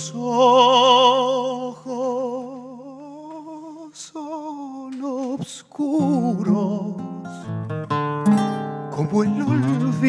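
Instrumental tango passage on bandoneon and acoustic guitar: a long held melody note with wide vibrato over a steady bass note, then, from about six seconds in, a run of plucked guitar notes and chords.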